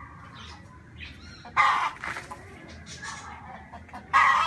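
Two loud, harsh bird calls, one about a second and a half in and another near the end, over fainter chirping of other birds.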